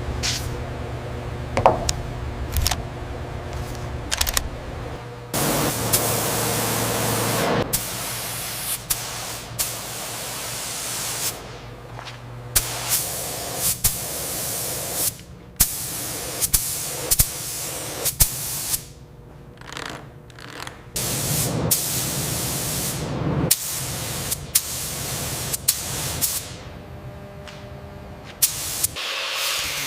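A string of short segments of loud hissing noise, cut in and out abruptly, with scattered sharp clicks and knocks.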